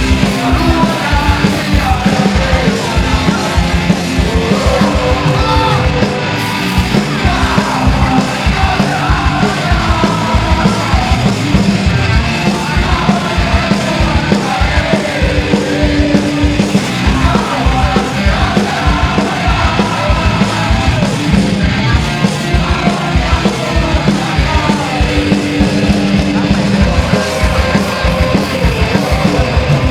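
Punk rock band playing live: a fast, loud song with a driving drum beat and shouted, yelled vocals.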